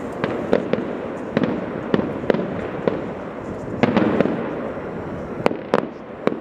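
Fireworks display: shells bursting in an irregular series of sharp bangs, several a second at times, over a continuous rumble and crackle.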